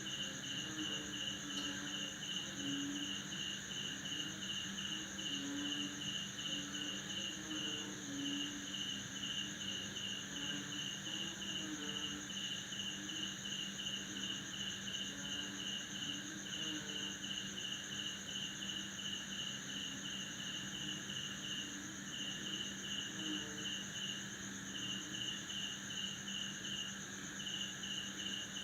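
Night chorus of crickets and frogs: crickets hold a steady high trill over a fast, even run of chirps that breaks off now and then, while frogs give short, low croaks at irregular intervals beneath.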